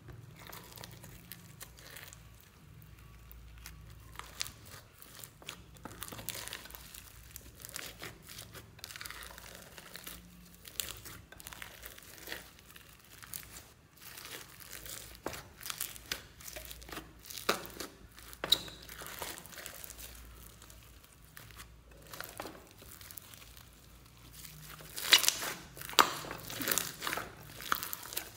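Floam slime full of foam beads being squished and kneaded together with clay by hand: crunchy crackling and popping with wet squelches, louder and denser near the end.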